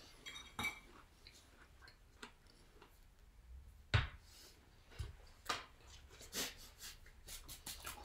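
Scattered light clicks and taps of cracker and pretzel snack pieces being handled over a wooden cutting board, with a quick run of small taps near the end as the hands are rubbed and brushed together.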